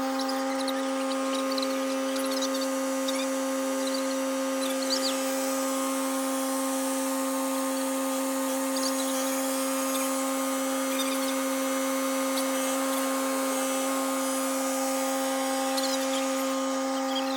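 A motor-driven machine runs at a constant high speed with a steady mechanical whine, its pitch and level unchanging. Faint short chirps sound now and then over it.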